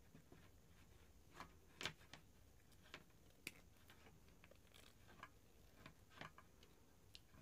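Near silence with a dozen or so faint, scattered clicks and taps of small objects being handled, the clearest about two seconds in.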